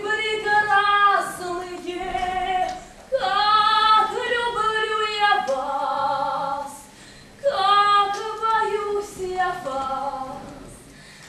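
A woman singing a melody in long held notes, in three phrases with short breaks between them.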